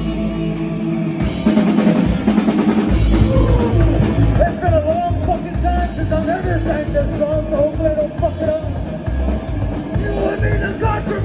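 Live psychobilly band playing: upright bass, drum kit and electric guitar, with a singing voice coming in a few seconds in and again near the end.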